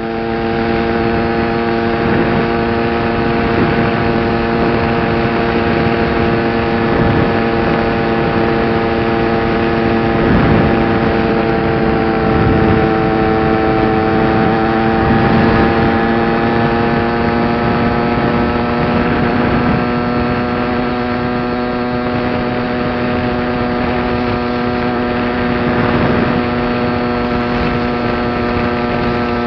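Peugeot XP6 50cc two-stroke single cylinder running under way through an expansion-chamber (rezo) exhaust, a steady buzzing note that sags slightly about halfway and picks up again, with wind rushing over the helmet camera.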